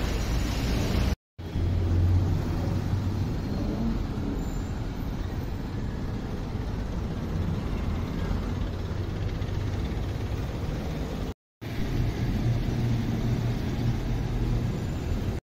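Steady outdoor background noise with a low rumble and hiss. It cuts out to silence for a moment twice, where separate clips are joined.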